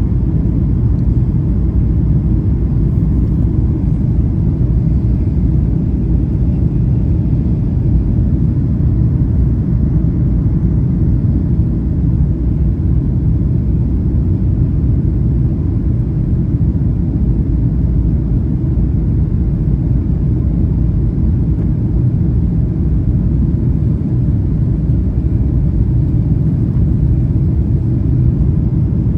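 Steady low rumble of a Boeing 737-800's cabin noise, with the engines and airflow running evenly and no change in level.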